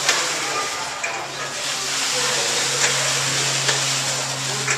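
1870 steam beam engine running: a steady hiss of steam, with sharp clicks from the moving machinery about once a second and a low steady hum.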